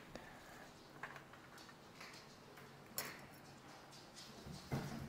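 Kitchen knife cutting a vegetable on a plastic cutting board: a few sharp, separate taps of the blade on the board, spaced a second or more apart.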